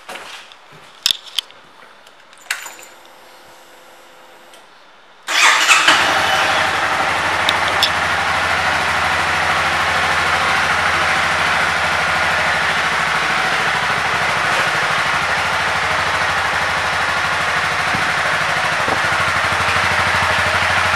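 Honda CBR300R's single-cylinder engine being started: a few sharp clicks and a faint hum, then about five seconds in it fires suddenly and settles into a steady idle.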